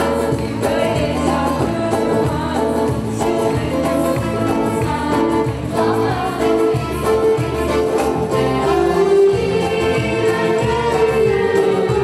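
Song from a stage musical: several voices singing together over a band accompaniment.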